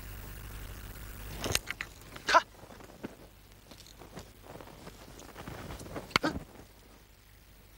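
Wooden spear shafts knocking together in a few sharp clacks, once about a second and a half in and again about six seconds in, over a low steady hum.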